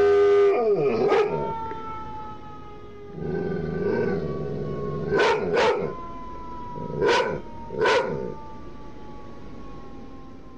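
A dog howls along with a fire truck siren, then gives four short yips. The siren's wail falls slowly in pitch as it winds down.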